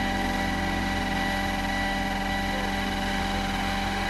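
Scale RC helicopter's main and tail rotors and drivetrain running at flight speed as it settles from a low hover onto the pad: a steady hum with a constant high whine over it.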